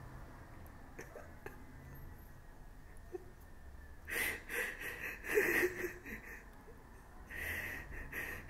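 A man crying quietly: halting, wheezy breaths and sobs with a brief catch of voice, starting about four seconds in and coming again near the end.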